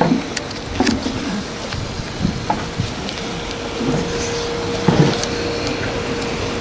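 GWR 4575 class 2-6-2 tank steam locomotive 5542 moving slowly at low speed: a steady rushing noise with a faint held tone from about three seconds in, and scattered light knocks.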